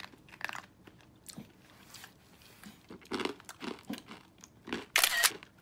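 A toy poodle crunching and chewing a hard cookie: irregular crisp crunches, a cluster about three seconds in and the loudest bite near the end.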